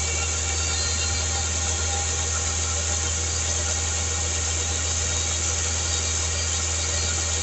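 Chevrolet Spin's engine running steadily at raised revs, held at about 2500 rpm for a battery tester's charging-system test, heard close up in the open engine bay.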